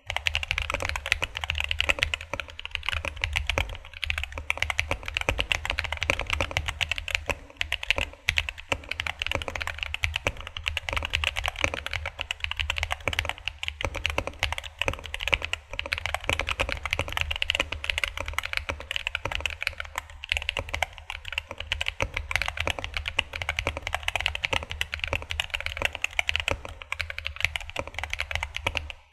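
DK75 mechanical keyboard with Holy Panda tactile switches and PBT double-shot Cherry-profile keycaps being typed on rapidly and continuously, a dense stream of key clacks.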